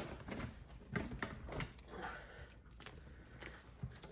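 Slime squelching with irregular soft wet clicks and pops as it is handled and mixed.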